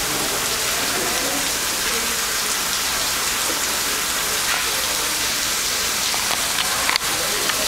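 Water jetting from a burst pipe and spattering onto the subway track bed: a steady hiss of spray.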